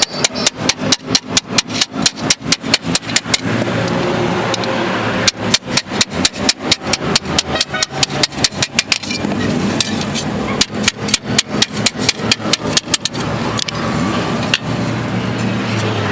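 Rapid hammer blows on car-body sheet metal, about six a second, in three runs with short pauses between them, over a steady background noise.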